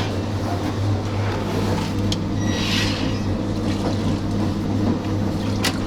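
Electric drain-cleaning machine running steadily, its motor humming while the spiral cable turns in a clogged drain pipe, with a few sharp knocks from the cable and pipe.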